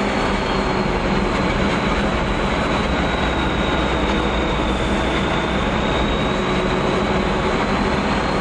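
Reo M35 6x6 army truck running and driving off-road, a steady loud engine and drivetrain noise with a high whine held over it throughout.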